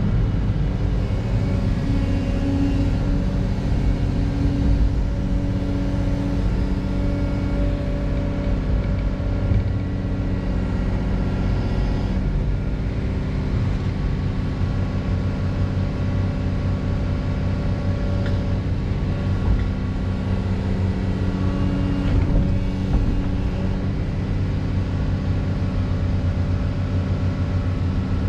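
Heavy diesel engine of earthmoving machinery running steadily under load, its pitch shifting slightly now and then.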